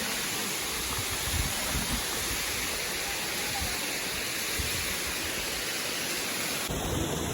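Waterfall rushing: steady falling-water noise spread evenly from low to high, with irregular low rumbles underneath.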